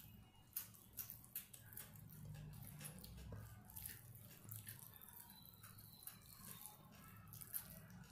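Faint, soft wet clicks and squishes of eating rice and curry by hand, over a low steady hum.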